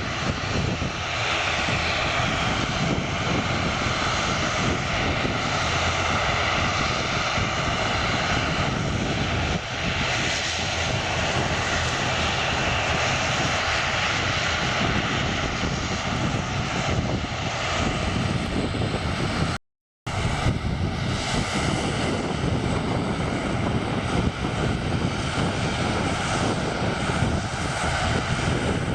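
Propeller aircraft engines running steadily with a loud, dense drone. A brief break of silence comes about two-thirds of the way through.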